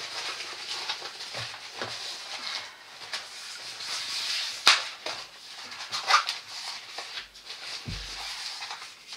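Crinkling and rustling of a rolled diamond painting canvas and its cover paper as hands unroll it and press it flat, with a sharp crackle about halfway through and a dull thump near the end.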